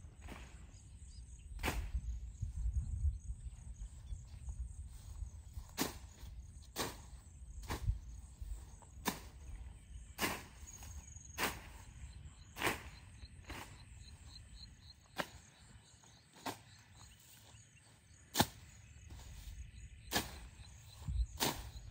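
A series of sharp knocks at an uneven pace, about one every second, over a low steady rumble.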